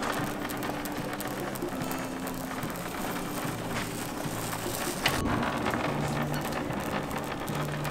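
Shopping cart wheels rattling along a hard store floor, under background music with a low repeating bass line. A sudden hit comes about five seconds in.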